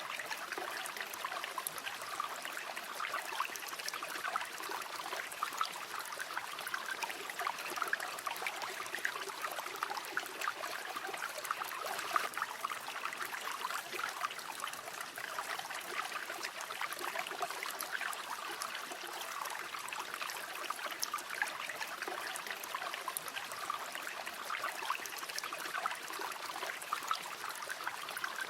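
Flowing river water: a steady, even rush dense with small splashes.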